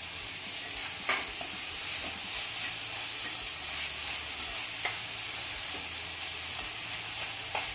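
Vegetables sizzling in hot oil as they are stir-fried over high flame, with a steady frying hiss. A spatula knocks sharply against the pan three times, about a second in, near five seconds and near the end.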